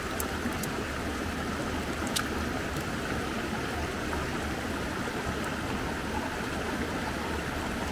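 River water running steadily, an even rushing of flowing water, with a few faint clicks, the sharpest about two seconds in.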